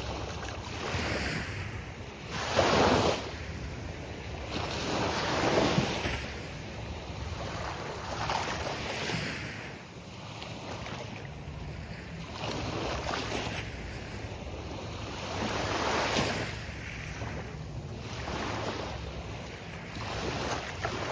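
Gulf of Mexico surf breaking on a sandy beach, wave after wave swelling and fading, with the loudest breaks about three, six and sixteen seconds in.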